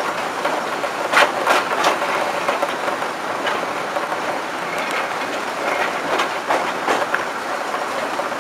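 Class 05 diesel shunter moving slowly along the track, heard from the cab side window: steady running noise, with sharp wheel clicks over rail joints, three in quick succession about a second in and two more around seven seconds in.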